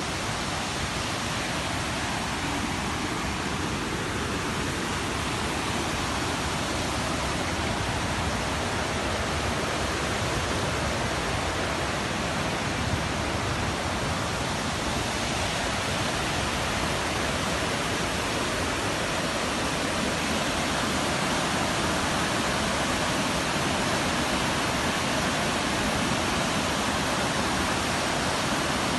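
Steady, even rush of falling water from a small waterfall.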